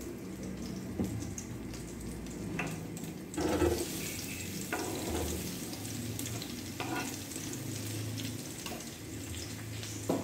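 Sliced onions and chilli frying in hot sesame oil in a wok, sizzling steadily, with a few sharp knocks of the board or a utensil against the pan.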